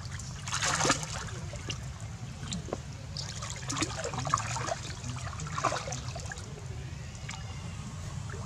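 Water splashing and dribbling as young macaques swim and paddle in a shallow muddy pond. The splashes come in irregular bursts, strongest about half a second in and again around four and six seconds in, over a steady low rumble.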